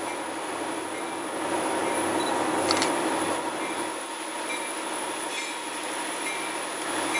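Three diesel locomotives of a freight train working under throttle as the train approaches, a steady rumble of engines and rolling wheels, with one sharp click about two and a half seconds in.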